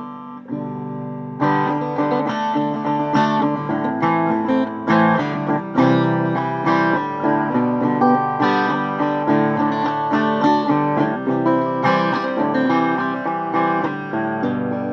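Acoustic guitar being played, mixing strummed chords and picked notes; a soft ringing passage gives way to a louder strum about a second and a half in, and the playing continues steadily after it.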